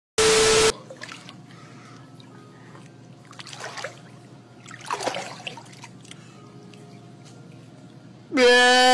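Water sloshing and trickling in a pool, fairly quiet, after a short loud burst of noise right at the start. Near the end a loud held pitched tone with a quick rising onset breaks in.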